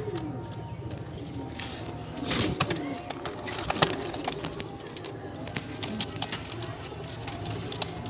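Domestic pigeons cooing in low, gliding coos, with two louder rustling bursts about two and a half and three and a half seconds in.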